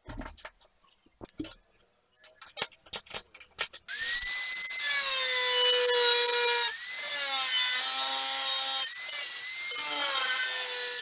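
A few light handling clicks, then about four seconds in an angle grinder's cut-off disc starts and cuts through a steel circular saw blade. The loud grinding whine rises as it spins up, then sags in pitch each time the disc bites into the steel and climbs again when eased off.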